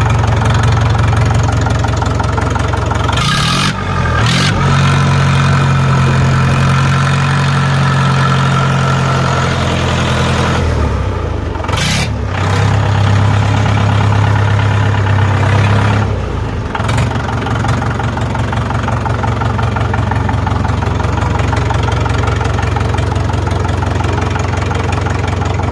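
Mahindra four-cylinder tractor diesel engine running. It speeds up a few seconds in and holds there, drops back briefly, speeds up again, then settles to a steady idle about two-thirds of the way through.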